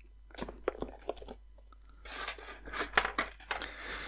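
Light irregular clicks and rustling of hands handling a foot switch's cable and its stripped wire ends.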